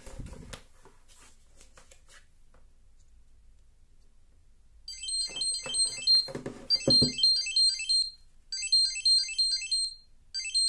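Google TV Streamer voice remote playing its find-my-remote alert: a loud, high-pitched electronic chime melody that repeats in short phrases, starting about five seconds in. A few clicks and handling knocks come before it.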